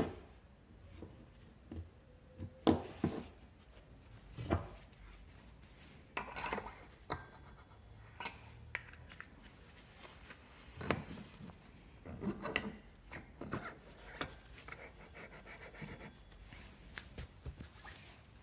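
Metal parts of a scooter variator being handled and fitted by hand: scattered clinks and knocks, a few with a short metallic ring, and light scraping of the pulley halves against the crankshaft and each other.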